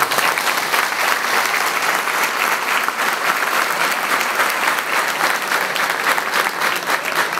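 A large audience applauding: many hands clapping in a dense, steady patter.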